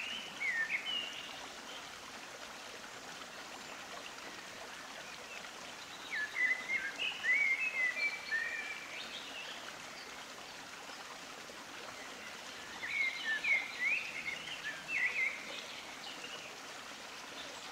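Birds chirping in three short bouts of song over a steady rushing background hiss.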